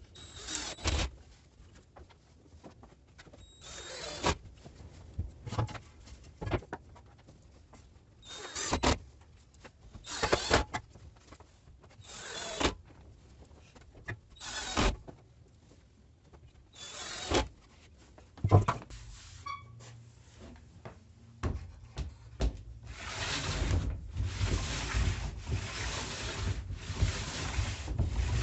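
Workshop hand work: short rubbing or scraping strokes, about one every two seconds, then a longer stretch of continuous rubbing near the end.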